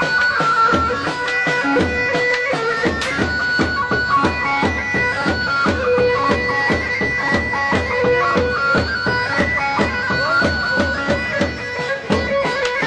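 Traditional dance music: a shrill, reedy wind melody of held notes over a steady drum beat.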